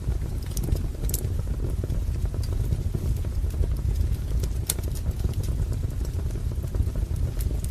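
Wood fire burning in a fireplace: a steady low rumble of flames with sharp crackles and pops from the burning logs now and then, loud ones about a second in and just under five seconds in.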